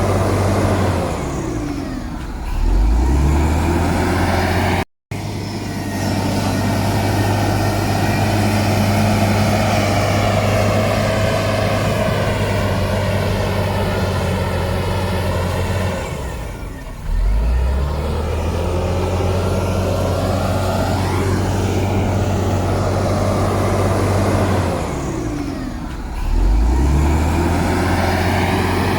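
Heavy diesel engine of an earthmoving machine running hard, its pitch sagging and then picking back up three times as the load changes. The sound drops out briefly about five seconds in.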